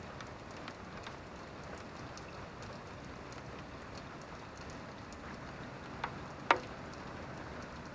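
Steady rain falling, with scattered small drip ticks. Two louder single drops hit about six seconds in, the second the loudest.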